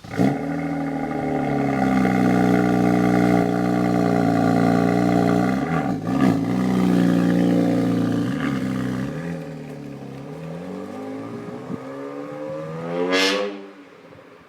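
BMW N54 twin-turbo straight-six engine pulling under acceleration, its note holding fairly steady, with a short break about six seconds in. It eases off about nine seconds in, then revs sharply up near the end and cuts off.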